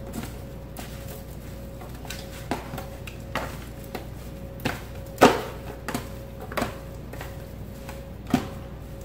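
Disposable aluminium foil pan crinkling and knocking irregularly as hands toss cubed raw steak in it, the loudest knock about halfway through. A faint steady hum runs underneath.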